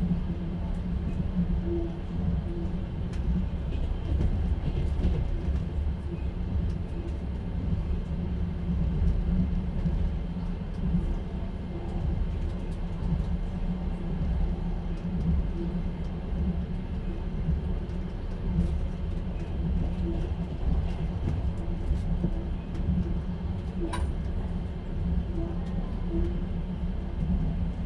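Passenger train carriage heard from inside while running: a steady low rumble with the knock of the wheels on the rails, and one sharp click near the end.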